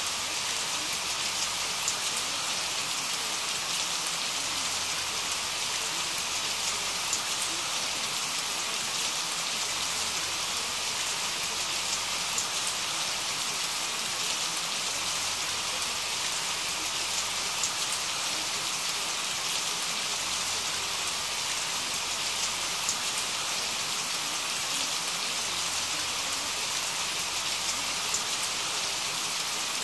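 Steady rain: an even hiss with faint, scattered drop ticks.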